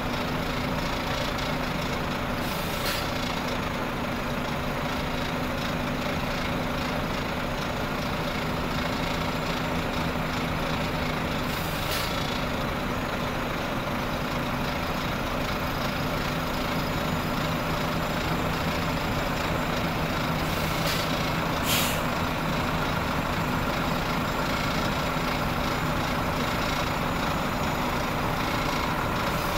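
Heavy tractor unit's diesel engine running steadily as it slowly hauls a long multi-axle heavy-haul trailer past, with the rumble of its many wheels. Four short hisses of air, typical of air brakes, break through the drone.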